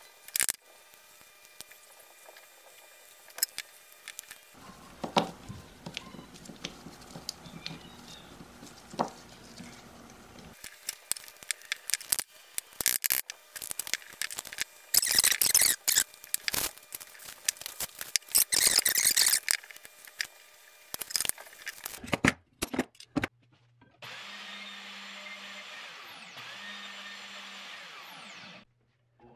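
Gloved hands handling an epoxy-coated knife handle: scattered clicks, taps and rustles as the scales and pins are handled and pressed together. About 24 seconds in, a bandsaw starts a steady run for a few seconds, then cuts off suddenly.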